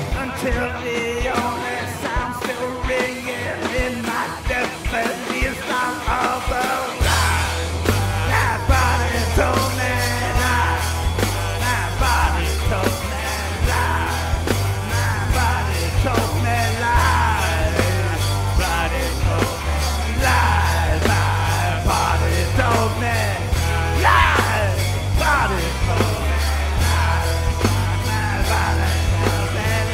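Live rock band with drums, guitars and a sung vocal line. About seven seconds in, a heavy bass and drum groove comes in with a steady beat.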